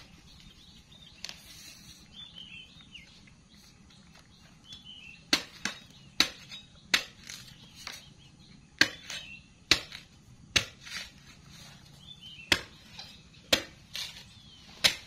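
A large cleaver chops into a green coconut: about a dozen sharp, irregularly spaced strikes starting about five seconds in. Faint high chirps come between the strokes.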